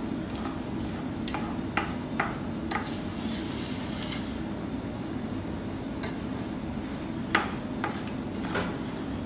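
A spoon stirring a thick, sticky rocky road mixture of chocolate-coated biscuits, cereal and fruit in a large metal stockpot, with irregular sharp clinks and scrapes of the spoon against the pot, over a steady low hum.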